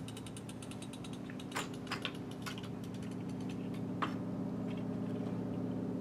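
A steady low machine hum runs throughout, with a rapid rattle of fine clicks in the first second and a half and a few sharp separate clicks and knocks from handling the wooden board speaker rig.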